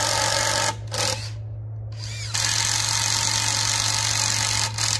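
Cordless drill boring inoculation holes about an inch and a quarter deep into a hardwood log. One hole finishes less than a second in, and a brief burst follows. A second hole is drilled from about two seconds in until near the end, with the motor's pitch rising as it spins up.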